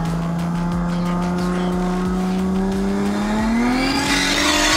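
Nissan Stagea's RB25DET turbocharged straight-six engine heard from inside the cabin, holding a steady note and then climbing in pitch and growing louder from about three seconds in as the car is put on the power.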